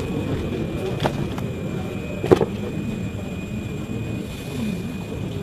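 Steady jet airliner cabin noise, the even rush of engines and air inside the cabin, with a faint constant high tone. Two sharp clicks come about a second and two seconds in.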